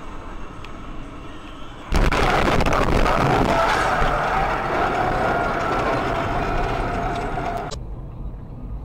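Car crash heard from inside the dashcam car: a sudden loud impact about two seconds in, followed by several seconds of loud crashing noise with a steady tone running through it, cut off sharply near the end.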